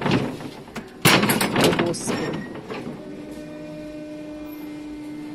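Knocking and clattering as hinged tile-sample display panels are swung over, twice, then a steady low hum.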